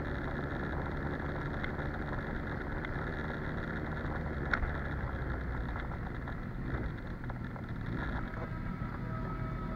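Kawasaki Ninja sportbike engine running steadily at low speed, a low even rumble. A single sharp click about four and a half seconds in.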